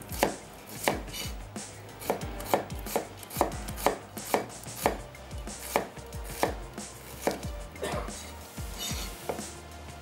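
Large kitchen knife slicing red onions on a wooden cutting board: a steady run of knife strikes against the board, about two a second.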